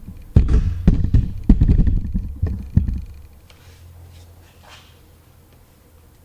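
Knocks, thumps and rattles of plastic trim as push-in plastic rivets are worked into the hatch panel with a screwdriver. The handling stops after about three seconds.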